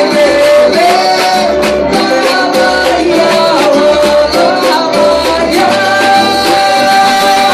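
A band playing a Latin-style song with a singer holding long notes over bass and a regular beat.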